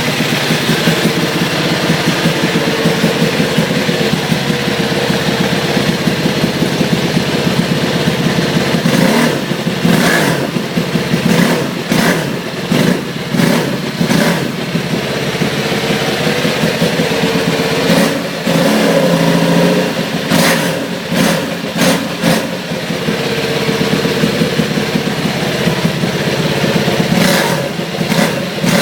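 Aprilia SXV 550 supermoto's V-twin engine on its stock exhaust, idling steadily at first, then revved in repeated short throttle blips from about nine seconds in, with a steadier stretch before more blips near the end.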